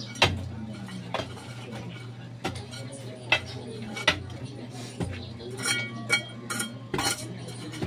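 Irregular metallic clinks and knocks of hand tools working soil and rubble. A few strikes about six seconds in ring briefly.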